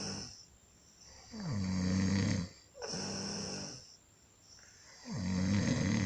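Rhythmic snoring: two long, low, rattling snores about three and a half seconds apart, with a breathy hiss between them.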